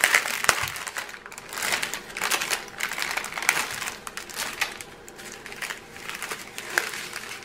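Small plastic bags of diamond-painting resin drills crinkling and rustling in the hands, in irregular crackles.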